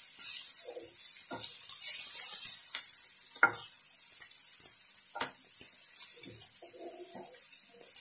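Slotted spatula stirring and scraping a frying tadka of onions, tomatoes, chillies and curry leaves in a non-stick pan, with a few sharp knocks of the spatula against the pan over a steady high hiss of sizzling oil.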